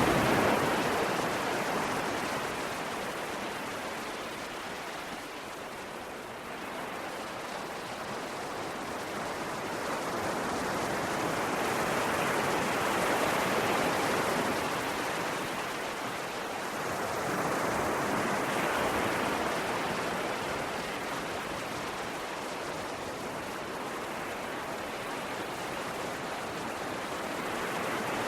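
Sea waves breaking and washing on a shore, a steady rush of surf that swells and ebbs, with several slow surges a few seconds apart.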